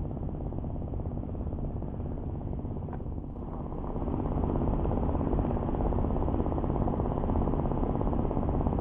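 An engine running steadily with a low drone, growing a little louder about four seconds in.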